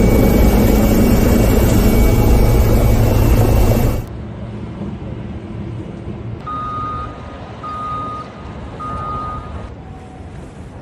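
Loud, steady helicopter engine and rotor noise, heard from on board, which cuts off abruptly about four seconds in. Then quieter outdoor ambience, with a vehicle's reversing alarm beeping three times about a second apart.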